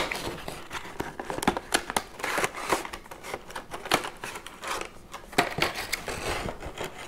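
Retail fan packaging being opened: a cardboard box flap lifted and a clear plastic clamshell tray slid out and set on the table, giving irregular clicks, crinkles and scrapes of plastic and cardboard.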